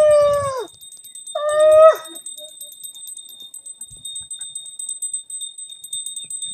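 Conch shell (shankha) blown in puja: a long steady blast that falls off about half a second in, then a shorter second blast near two seconds in that drops in pitch as it stops. A small bell keeps ringing faintly and is left alone after the blasts.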